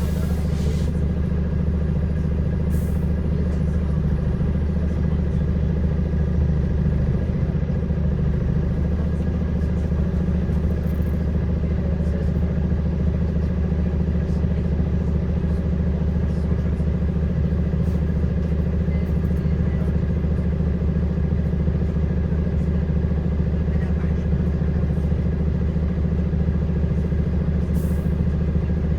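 Inside a moving bus, a steady, loud droning hum from the bus, which goes on without a break.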